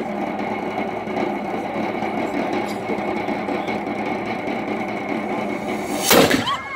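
Steady crowd murmur, then about six seconds in a single loud blast as an antique muzzle-loading ceremonial cannon fires.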